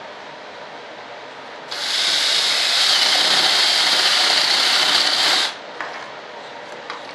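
Hand-held electric drill running for nearly four seconds as its bit bores through plywood, starting about two seconds in and cutting off suddenly, followed by a couple of light knocks. A steady background hiss runs underneath.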